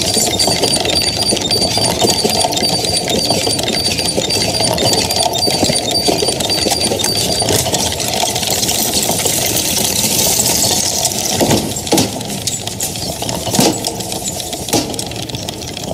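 Small toy tricycle with a doll riding it, a busy mechanical whirring and rattling. A fast regular ticking runs through about the first half, and a few separate clacks come near the end.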